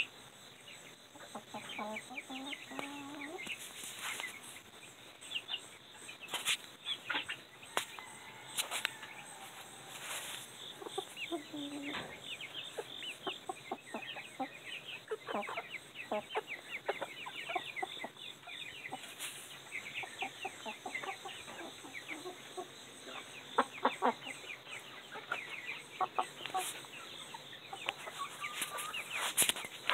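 Silkie chickens clucking and chirping, with a steady stream of short calls and a few louder squawks near the end.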